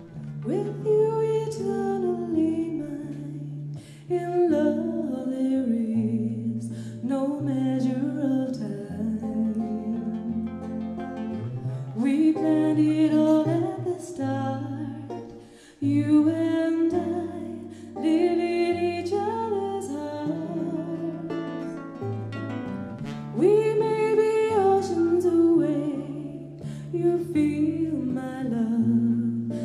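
Live band playing a slow pop ballad: a sung melody line over guitars and keyboards, with held bass notes that change every second or two.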